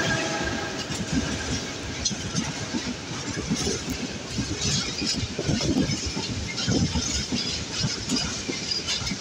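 Freight train of covered hopper wagons rolling past close by. The wheels clatter and thump irregularly over the rails against a steady rumble, while the diesel locomotive's drone fades away in the first second.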